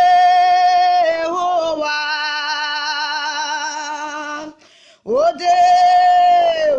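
A woman singing solo, holding long, steady notes. About halfway through she breaks off briefly, then comes back in with a rising swoop into another long held note that drops away near the end.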